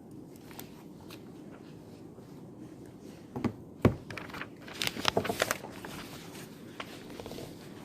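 Steady room hum with a sharp knock a little before the middle, then a short flurry of clicks and rustling: small objects being handled and set down on a study desk.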